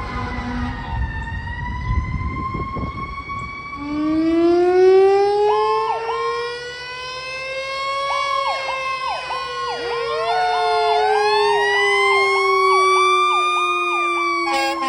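Fire engine sirens. About four seconds in, one siren rises in pitch and then slowly falls in a long wail, while a second siren sweeps up and down quickly and repeatedly over it. A low engine rumble is heard before the wail starts.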